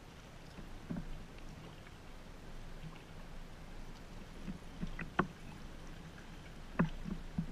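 Water lapping and splashing around a paddled sea kayak on calm sea, with a few sharp clicks, the loudest about five and seven seconds in.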